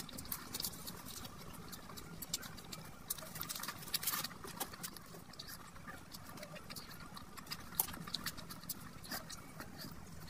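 Close-miked eating sounds: wet chewing and lip smacks, with squelching as rice and curry are mixed by hand, heard as many short sharp clicks and smacks.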